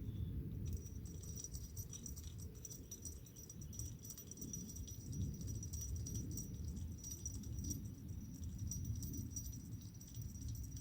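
Night insects chirping in a steady, pulsing high-pitched chorus, over a low rumble.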